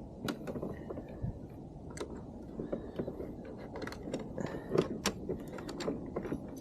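Scattered light clicks and knocks of hands handling motorcycle parts and wiring connectors, a few sharper knocks about five seconds in.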